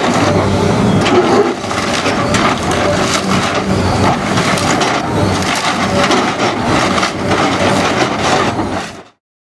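Hydraulic excavator's bucket crushing and breaking through the wooden debris of a demolished house: a continuous crunching with many sharp cracks of splintering timber. It cuts off suddenly near the end.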